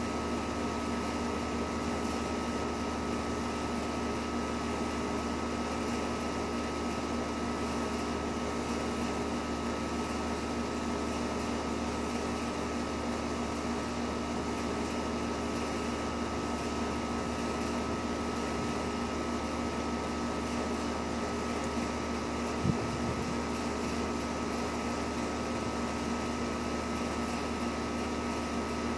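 Steady mechanical hum with several held tones over an even whir, unchanging throughout, and a single brief knock about three-quarters of the way through.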